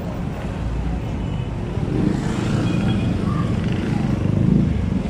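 Street traffic noise: motor vehicles running along the street, growing louder from about two seconds in, with the loudest moment near the end as one passes close.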